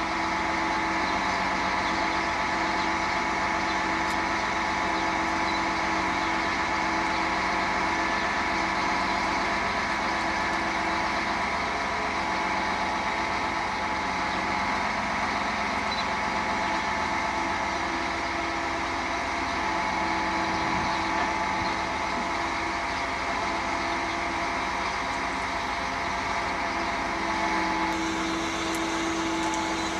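Truck-mounted crane's engine running steadily while it hoists a load on chains, a continuous even drone.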